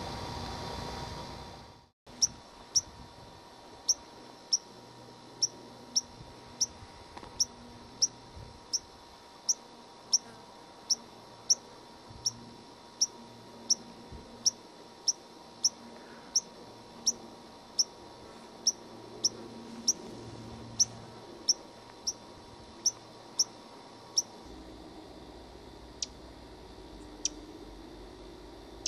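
White-crowned sparrow giving a long, even series of sharp, high chip calls, about one and a half a second; after about 24 seconds only a few more chips come, spaced out.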